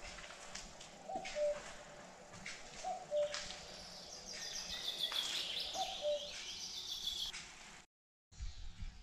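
Birds calling: a two-note call, a short higher note followed by a longer lower one, repeats three times, while high, busy chirping from smaller birds swells in the middle. The sound cuts out briefly near the end.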